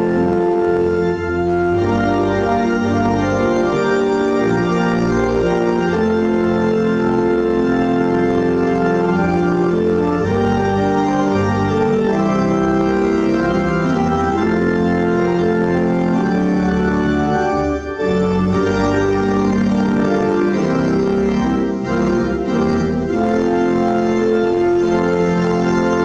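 Church organ playing a slow piece in sustained chords over a deep pedal bass, with short breaks between phrases.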